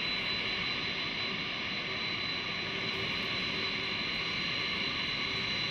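Jet engines of the YAL-1 Airborne Laser, a converted Boeing 747-400F, running steadily on the ground: an even rushing noise with a high whine held on one pitch.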